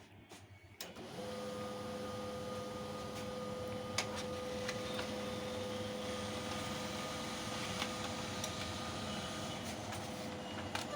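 Canon LBP 2900 laser printer running: its motor and gear train start about a second in and run steadily with a constant whine, a few light clicks, and then stop just before the end.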